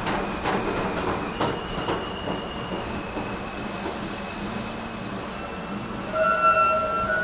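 Train running on the rails, with a few sharp wheel clacks over rail joints in the first two seconds and a thin steady wheel squeal. About six seconds in, a short train horn note sounds for about a second.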